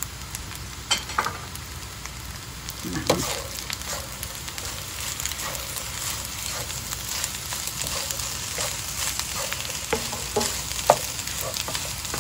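Rice sizzling in a hot nonstick pan while a wooden spatula stirs and turns it. There are a few sharp knocks of the spatula against the pan. The sizzle grows fuller from about halfway on.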